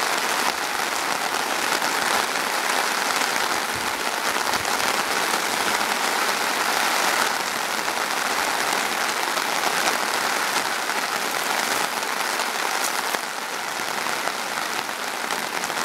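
Steady rain falling on a tarp overhead, heard from underneath: the lighter early rain ahead of the main storm.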